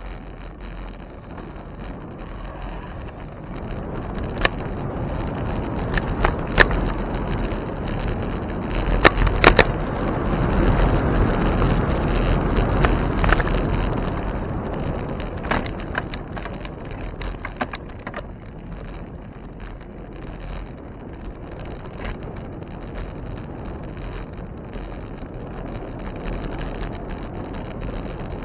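Road and wind noise from a moving bicycle: a steady rush that swells between about 4 and 14 seconds in, then eases off. Sharp clicks and knocks come scattered through the middle.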